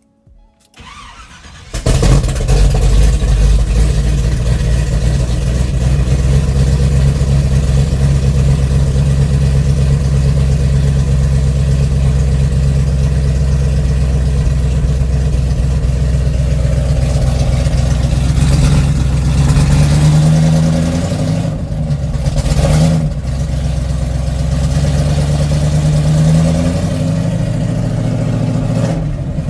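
A 454 big-block V8 cranks briefly and catches about two seconds in, then runs steadily, with a few revs rising and falling in the second half.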